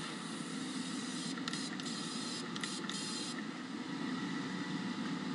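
Powder-coating spray gun hissing as it blows a cloud of powder into a spray booth, over the steady running of the booth's duct extraction fan drawing the powder in.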